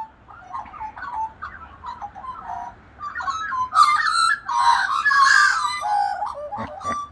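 A flock of Australian magpies carolling: warbling, gliding whistled phrases that grow louder and fuller about three seconds in.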